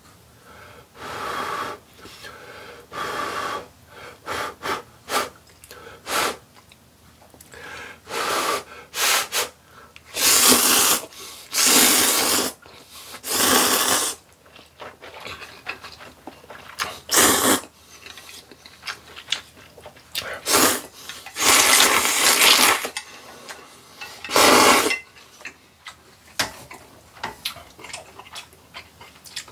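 A man slurping hot instant ramen noodles off chopsticks in a series of loud slurps, each a second or two long, with quieter chewing and breathing between them.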